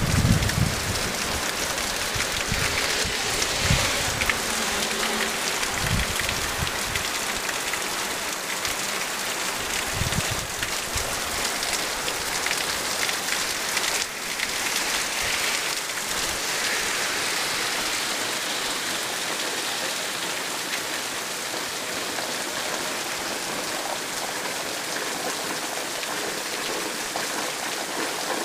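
Heavy rain falling steadily on the yard and roofs, with runoff pouring off the roof edges. A few short low rumbles come in the first ten seconds.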